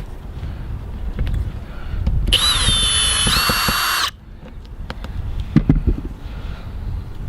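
Cordless drill/driver running for about two seconds near the middle, its whine rising as it starts and shifting pitch partway through, as it backs a mounting screw out of the RV roof antenna base. Low wind rumble on the microphone and a few light clicks around it.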